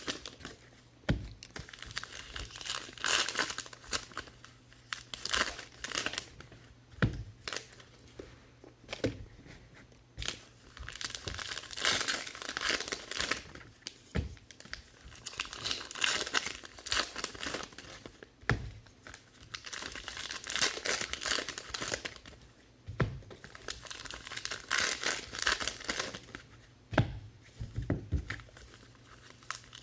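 Trading card pack wrappers being torn open and crinkled in repeated bursts of tearing. Now and then a short knock sounds, as packs or cards are set down on the table.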